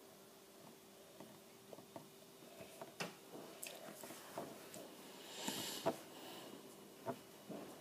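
Faint mouth and handling noises: a few small clicks and smacks, with a short breathy hiss a little past halfway, over a faint steady hum.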